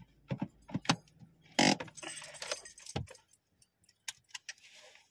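Car keys jangling at the ignition, with several sharp clicks and a short rustle about a second and a half in.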